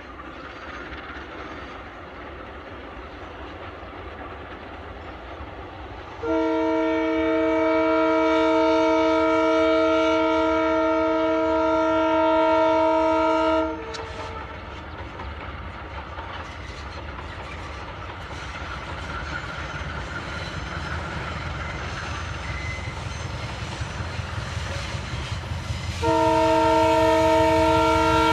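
Diesel-electric locomotive approaching, its low engine rumble growing steadily louder. Its multi-tone horn sounds one long blast of about seven seconds, and a second blast begins near the end.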